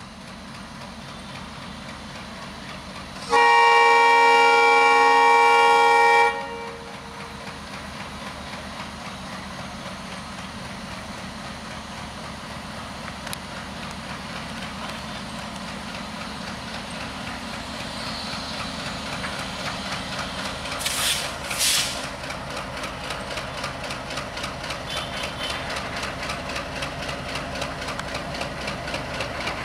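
WDM-3A diesel locomotive hauling a passenger train away from a station, its engine running with an even rhythmic beat that grows slowly louder as the train comes closer. About three seconds in, the locomotive sounds one long horn blast of several tones together, lasting about three seconds. Two short bursts of noise come about two-thirds of the way through.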